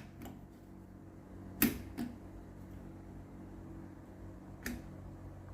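Sharp clicks of the Jackson 103 tube tester's selector switches being set for a tube test: two close together a little over a second and a half in, and another near the end, over a low steady hum.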